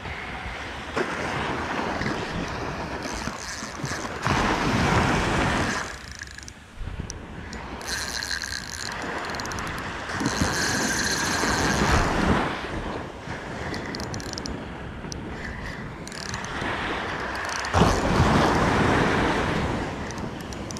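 Surf breaking and washing up a sandy beach, swelling in surges every six or seven seconds, with wind buffeting the microphone.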